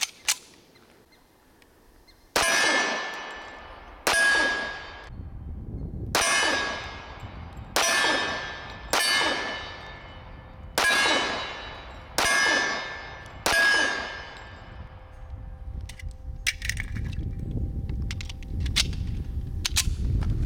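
Eight shots from a Devil Dog Arms Commander-size 1911 pistol, fired at an unhurried pace about one to two seconds apart. Each shot is followed by a ringing clang that dies away over about a second, the sound of a hit on a steel target. After the last shot come a few light metallic clicks of gun handling.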